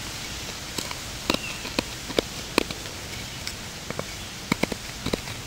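A knife blade carving a drill socket into a wooden bow-drill board with small cuts worked around in a circle, giving short, irregular clicks about every half second.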